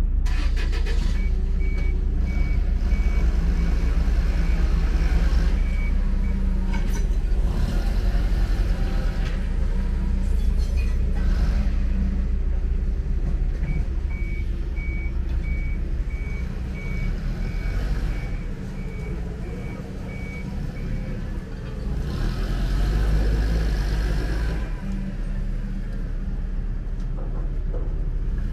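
A heavy engine rumbles low and steady while a reversing-type warning beeper sounds in two runs of evenly spaced high beeps. A louder rushing swell comes late on.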